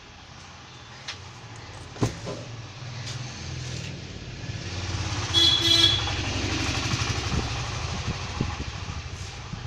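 A motor vehicle's engine rumbles louder as it approaches and passes, then fades. Its horn gives two short toots about five and a half seconds in, the loudest sound here.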